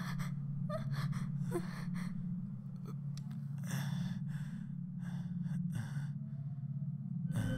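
A person gasping and breathing heavily in short repeated breaths, some with brief whimpering rises in pitch, over a low steady hum. Near the end a loud sustained music cue swells in.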